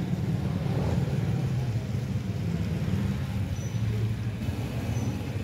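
Street traffic on a wet road: motorcycle and car engines passing, a steady low rumble.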